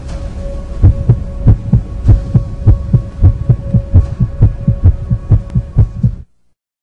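Intro of a hip-hop dance track: deep bass thumps in pairs like a heartbeat, about one pair every 0.6 seconds, over a steady high hum. The beat cuts off suddenly near the end, leaving a short silence.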